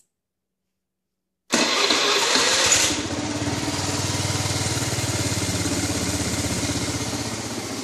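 Honda Elite 110 scooter's single-cylinder four-stroke engine cutting in suddenly about a second and a half in, loud and hissy for its first second or so, then settling into a steady idle. It runs with no abnormal sounds, a good sign after running with overfilled oil.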